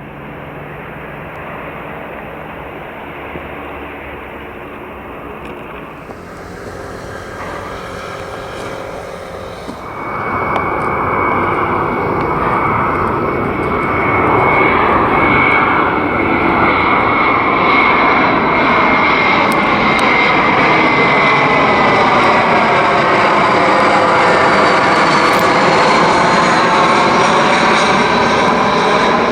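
Jet airliner on approach, its engines making a steady rushing noise with a high whine that gets much louder about ten seconds in and stays loud as it passes close by.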